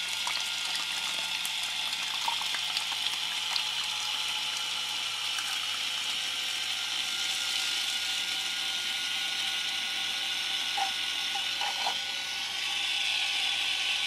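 Small DC motor of a homemade toy concrete mixer whirring steadily as it turns a plastic-bottle drum, with the wet mix sloshing inside and a few light clicks.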